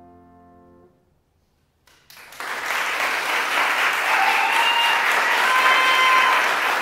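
The final piano chord of a classical song dying away into a moment of silence, then audience applause that starts about two seconds in and builds, with a couple of high whistle-like calls over it near the end.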